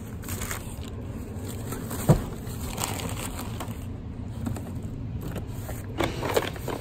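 Objects being handled in a cardboard box: one sharp knock about two seconds in, and a short burst of cardboard handling noise near the end as a small cardboard box is lifted out, over a steady low rumble.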